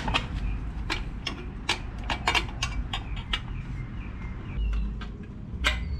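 Irregular sharp clicks and taps, about a dozen over a few seconds, from hand work on a motorized bicycle's drive chain and chain tensioner.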